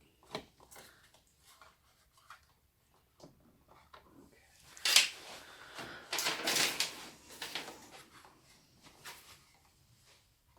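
Small clicks and rattles of plastic and metal PC parts being handled and fitted into a computer case, with a sharper click about five seconds in and a cluster of rattling around six to seven seconds in.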